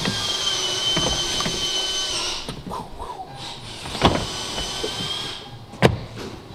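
Flat-pack floor panels being set into the van floor, knocking into place several times, with the sharpest knocks about four and six seconds in. A steady high-pitched machine whine runs in the background, stopping about two seconds in, returning, then dying away about five seconds in.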